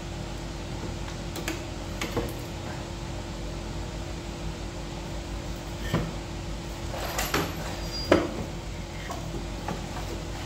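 A few scattered metallic knocks and clinks from engine parts and tools being handled, over a steady low hum.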